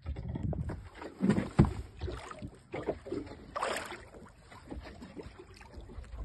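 Water sloshing against the hull of a small fishing boat at sea, with a few sharp knocks, the loudest about a second and a half in, and a brief rush of water noise a little before four seconds in.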